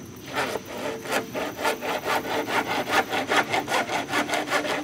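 Hand saw cutting through a PVC pipe with quick, even back-and-forth strokes, about four a second, starting a moment in.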